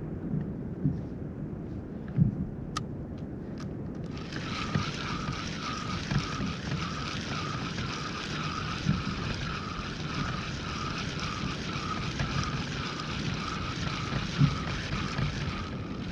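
Spinning reel being cranked to retrieve a lure, a steady whirr pulsing about twice a second with each turn of the handle, starting about four seconds in after a few sharp clicks. Low wind and water rumble runs underneath.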